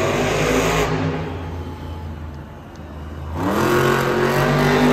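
Monster truck's supercharged V8 engine revving. It is loud at first and eases off about two seconds in, then revs up in a rising pitch a little over three seconds in and holds high and steady.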